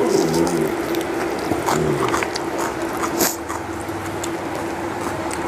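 Eating sounds: chewing, with a sharp clink of steel dishware a little over three seconds in, over a steady hum. A dog whines briefly in the first two seconds, waiting to be fed.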